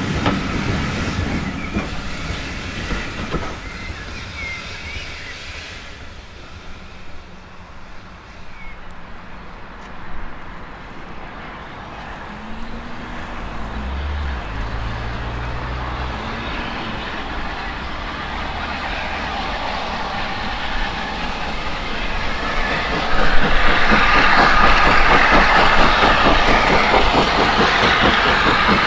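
Railway carriages clattering over the rail joints as a train pulls away and fades into the distance. Later a steam locomotive working hard comes in suddenly and loudly, its exhaust beating rapidly as it approaches.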